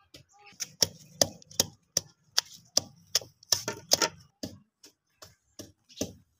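Long wooden pestle pounding green chillies and garlic in a terracotta mortar: steady, separate thuds about two to three a second, crushing them into a spice paste.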